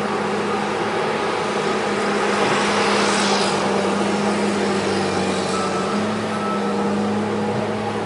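Diesel engine of heavy tracked forestry machinery running steadily, its pitch shifting slightly about six seconds in. A brief rush of noise comes about three seconds in.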